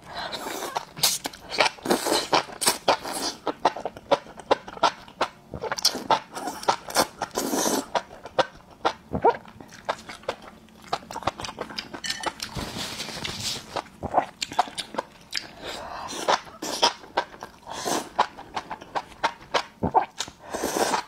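A person slurping and chewing spicy enoki mushrooms close to a clip-on microphone: a run of noisy slurps with many sharp mouth clicks and smacks between them.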